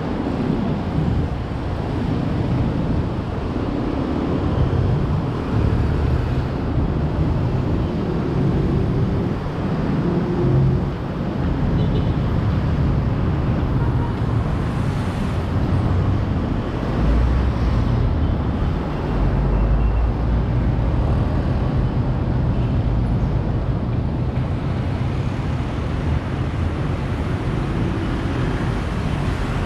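Busy road traffic: a continuous rumble of passing vehicle engines, with a deeper swell of engine noise about two-thirds of the way through.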